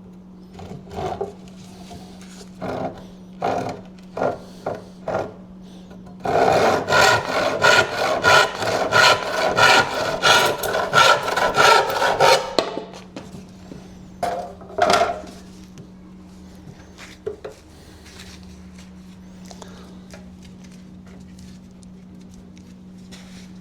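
Hand saw cutting wood in quick back-and-forth strokes, about two or three a second for some six seconds, with scattered knocks and scrapes of wood being handled before and after.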